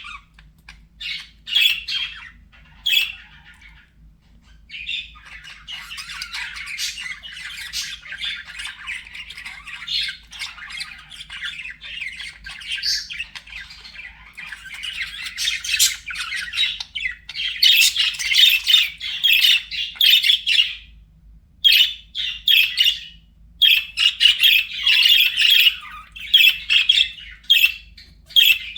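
Budgerigars chattering and warbling, with rapid chirps and harsh squawks, in short spurts at first and then almost without a break.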